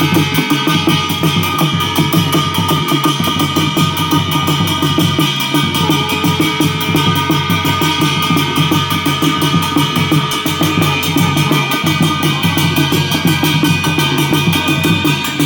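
Garhwali jagar music: fast, steady drumming with sustained tones over it, running without a break.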